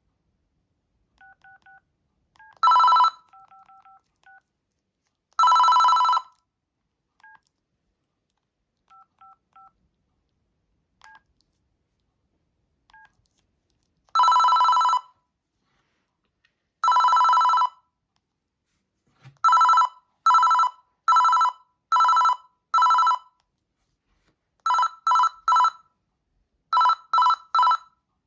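Panasonic EB-G60 mobile phone playing its built-in telephone-ring tones through its small speaker, each a fast trill of two alternating tones. The rings come in bursts: single rings of about a second, then five quick rings in a row, then groups of three. Faint short beeps sound in the gaps between rings.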